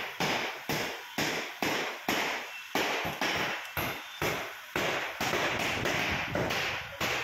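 Hand hammers tapping on floor bricks: a steady run of sharp knocks, about two a second.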